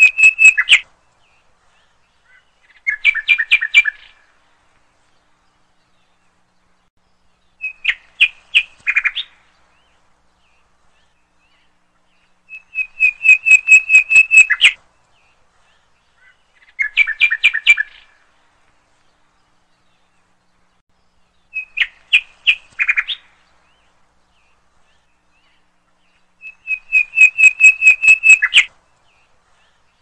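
Bird chirping: bursts of fast, repeated chirps, each one to two seconds long, come every four to five seconds with silence between. The same three phrases repeat in turn, like a looped recording.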